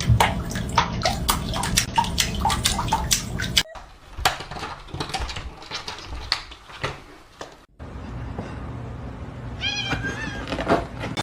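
A run of quick clicks and taps for the first few seconds, then near the end a short cat meow.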